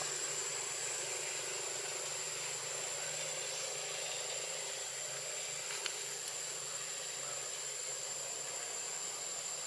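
Steady outdoor background hiss with a constant high-pitched whine, and two faint clicks a little past halfway.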